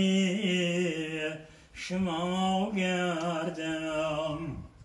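A man singing a Tajik Persian-language song unaccompanied, in two long held phrases with wavering ornaments on the notes and a short breath between them.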